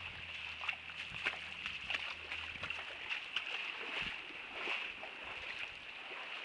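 Feet sloshing and splashing through shallow floodwater in irregular steps, over a steady high-pitched buzz. A low hum stops about two and a half seconds in.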